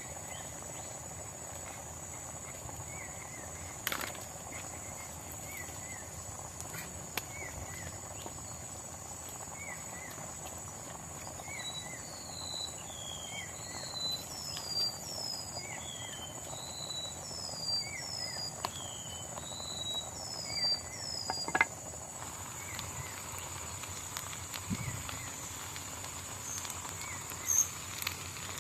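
Forest ambience: a steady high-pitched insect drone, with short chirping calls repeated about once a second and, from the middle on, a second caller giving quick falling whistled notes. A few sharp clicks or snaps, the loudest near the end of the calling.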